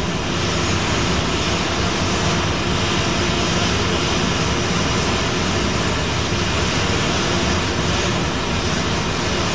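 Jet engines of an Indonesian Air Force Boeing 737 running steadily on the apron, a loud unchanging whine and rush with faint steady tones.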